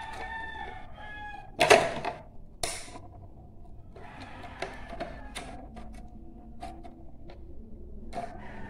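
A metal brake or clutch master cylinder handled on a table: a loud knock about two seconds in, another a second later, then light clinks and taps a few seconds on. A rooster crows in the background at the start.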